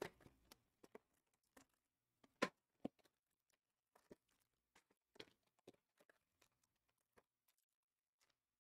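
Near silence broken by faint, scattered rustles and light taps of trading cards and their packaging being handled, the loudest two sharp taps about two and a half and three seconds in.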